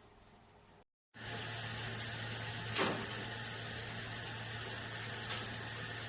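Steady rushing of running water with a low steady hum, starting about a second in, typical of an instant water heater's shower running; a brief knock near three seconds.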